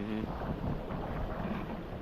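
Creek water running and gurgling over rock, with wind buffeting the microphone.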